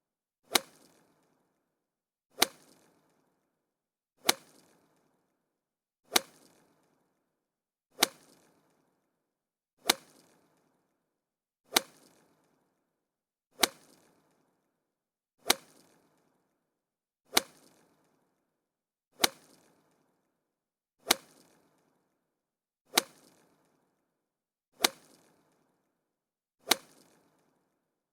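Golf club striking a ball: a sharp, clean crack with a short decay, repeated at a steady interval of just under two seconds, fifteen times.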